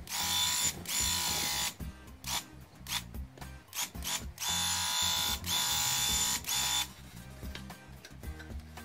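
Graco Ultra handheld airless paint sprayer buzzing in on-off bursts of a second or two as its trigger is worked, the longest near the middle, stopping about seven seconds in. Background music plays under it.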